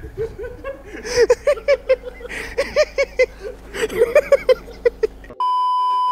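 A man laughing hard in quick, repeated bursts. About five seconds in, the sound cuts to a steady, high test-tone beep.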